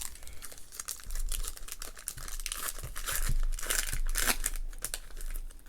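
Plastic wrapper of a hobby pack of football trading cards being torn open and crinkled by hand, in irregular crackling rips, loudest about three to four seconds in.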